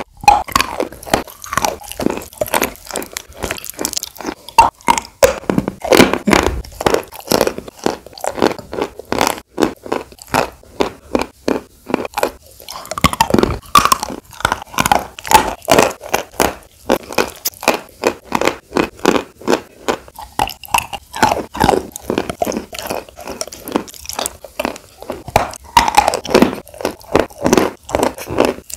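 Close-miked chewing of sawn chalk in wet clay paste: sharp, wet crunches, several a second, with a brief lull about halfway through.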